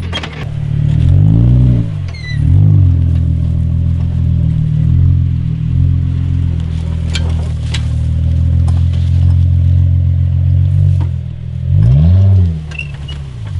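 Off-road 4x4's engine revved up and down twice, then held at a steady speed for several seconds, and revved up and down again near the end; two sharp knocks about seven seconds in.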